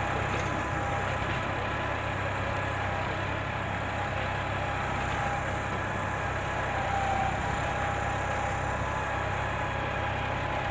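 Massey Ferguson 246 Dynatrack tractor's diesel engine running at a steady speed.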